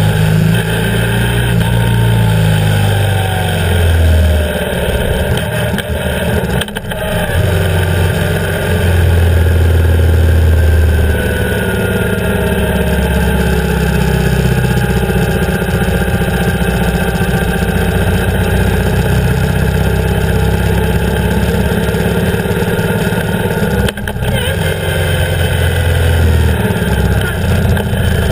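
BMW R 1150 GS's air/oil-cooled boxer twin running under way, with wind and road noise. The engine note rises and falls, and the sound dips briefly twice, about seven seconds in and near the end.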